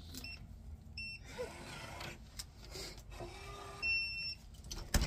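Electronic beeps: a few short ones in the first second, then one longer beep about four seconds in, followed by a sharp knock right at the end.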